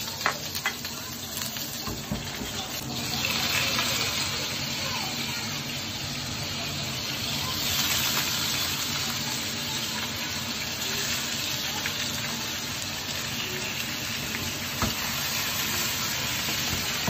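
Cut-up octopus stir-frying in a hot pan: a steady sizzle that grows louder about three seconds in, with a few sharp clicks.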